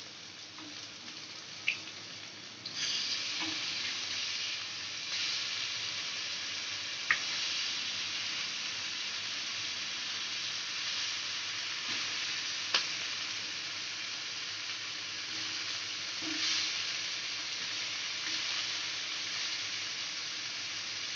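Sardines shallow-frying in oil on a cast-iron tawa: a steady sizzle that grows louder about three seconds in. A few sharp clicks come from the metal spatula against the pan as the fish are turned.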